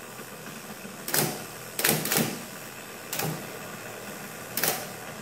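1940s IBM Electromatic electric typewriter with its motor humming steadily, and about five sharp type-bar strikes at uneven intervals as keys are pressed. The machine is being tested while some keys and the space bar fire only intermittently.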